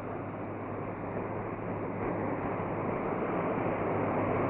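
Steady rushing blizzard wind that slowly grows louder from about halfway through, with a low steady hum underneath.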